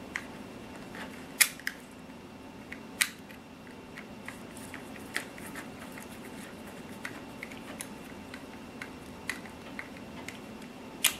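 Small screwdriver turning a long screw out of a plastic scale-truck rear bumper, giving scattered light clicks and ticks with a few sharper clicks.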